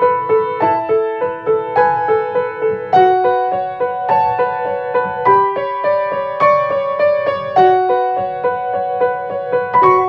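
Solo piano playing, with a repeating accompaniment figure in the middle range beneath a higher melody line.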